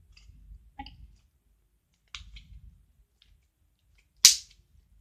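Slime being squeezed and pulled by hand, giving a few scattered sticky pops and clicks, the sharpest about four seconds in.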